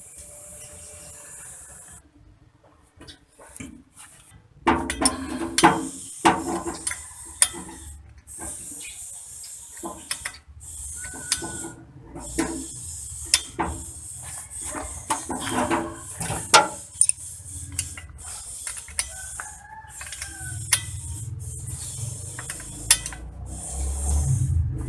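Metal hand tools clinking and knocking in irregular clusters, with ratchet-like clicking, during work on a differential's pinion seal. A rooster crows briefly in the background a little past the middle.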